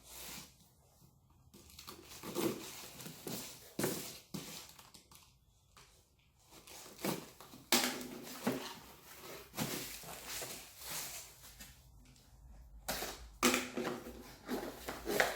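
A cardboard box being opened by hand: irregular tearing of cardboard and tape, with crinkling and rustling of packing material.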